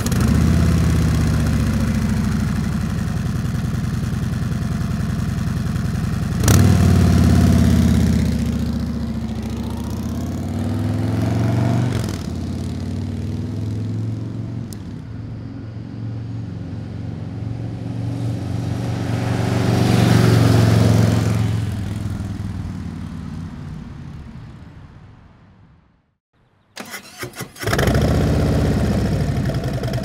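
Harley-Davidson Street Glide's Milwaukee-Eight V-twin on its stock exhaust, idling and then revved several times. It then passes by in third gear at 45 mph, rising as it nears and fading away into silence. About a second later the engine is started and running again.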